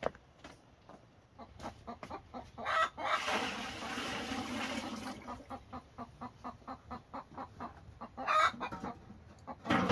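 Chickens clucking, with a rooster crowing for about two seconds roughly three seconds in, over a quick regular knocking of about four knocks a second.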